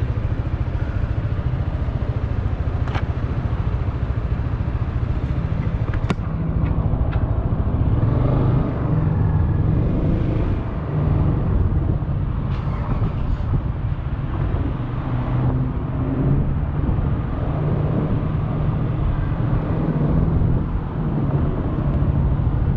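Yamaha XMAX 300 scooter's single-cylinder engine running steadily while riding, a little louder from about eight seconds in.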